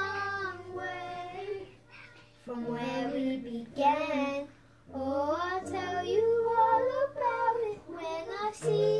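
A boy singing a slow ballad solo, in several phrases with short pauses between, over quiet held backing chords.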